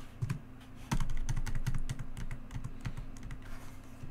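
Computer keyboard typing: an irregular run of key clicks, several a second, the loudest about a second in.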